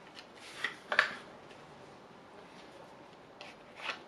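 A playing-card tuck box being opened and the deck slid out: a few short paper-on-card scrapes and taps about half a second to a second in, and another near the end.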